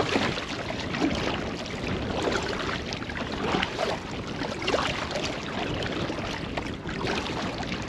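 Water splashing and lapping around a kayak in choppy, windy conditions, with wind buffeting the microphone.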